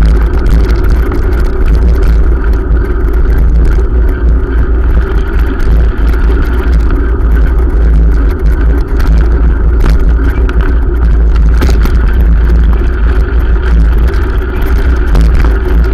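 Wind buffeting and road rumble on a camera microphone carried on a moving bicycle: a loud, steady low drone with no breaks.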